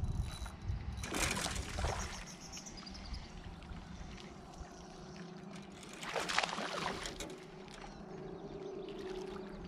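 Water splashing twice, about a second in and again around six seconds, as a hooked bass thrashes at the surface while it is reeled to the boat. A faint steady hum runs underneath in the second half.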